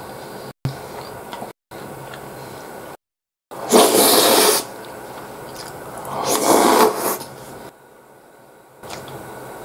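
Eating noises: two loud noisy slurps of beef stew off a spoon, about four and six and a half seconds in, over a steady hiss, with the sound cutting out briefly a few times.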